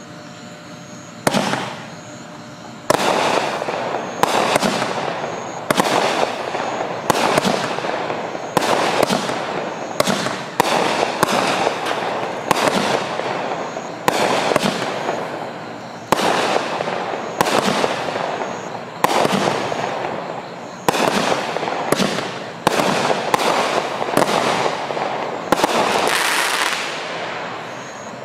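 A 200-gram, 20-shot Miracle Fireworks 'In God We Trust' cake firing shot after shot, about one a second. Each shot is a sharp report followed by a fading hiss, and the last shots near the end end in crackle as the finale.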